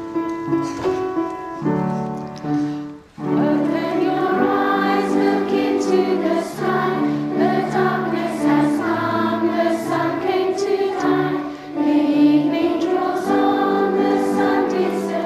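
Schoolchildren singing a hymn together with instrumental accompaniment. The accompaniment plays alone at first, and the singing comes in about three seconds in after a brief pause.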